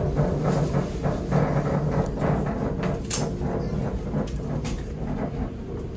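Class 345 electric train heard from inside the carriage by the doors, running into a station: a steady low rumble and motor hum with a few sharp clicks and knocks.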